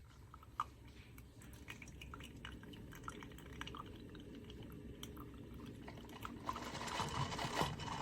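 Single-serve coffee maker brewing: scattered drips of coffee into the cup, then a fuller, louder stream of liquid building up near the end.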